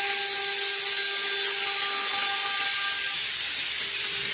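CNC wood router spindle milling an MDF sheet: a steady whine from the spindle over the hiss of the bit cutting the board.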